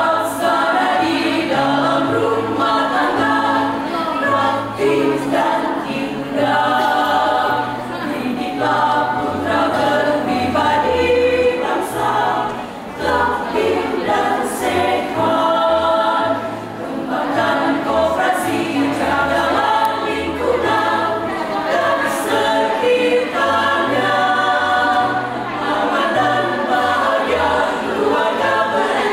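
Choir singing a PKK march song in several voice parts, with low, stepped bass notes sounding underneath the voices.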